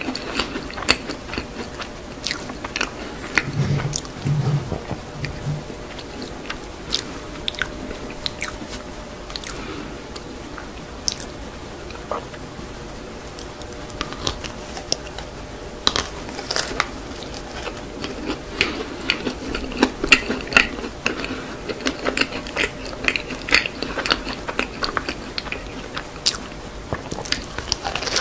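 Close-miked ASMR eating of cream-filled clam-shaped macarons: crisp crunching bites into the macaron shells and chewing, with many short sharp clicks scattered through.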